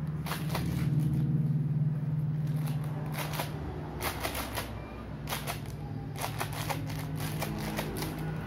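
Crinkly plastic snack wrapper being handled and squeezed, giving runs of sharp crackles, over a steady low hum.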